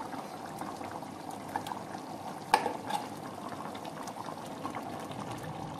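Tamarind-based vatha kuzhambu bubbling at a steady boil in an aluminium pot, with a few light clicks of a spoon against the pot as ground masala paste is added, the sharpest about two and a half seconds in.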